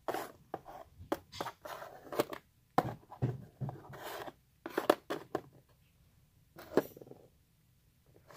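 Small plastic toy figures being handled and set down on a cardboard box: irregular clicks, taps and short scrapes, with a pause a little after the middle and one more cluster shortly after.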